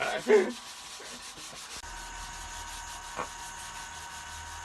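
Hand sanding of a 1/10-scale hard plastic Toyota LC70 RC body shell: a steady scratchy rubbing of sandpaper on plastic, with one light tap about three seconds in.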